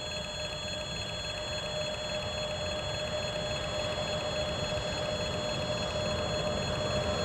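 Level-crossing warning signal sounding a steady electronic tone, while the rumble of an approaching freight train grows gradually louder underneath it.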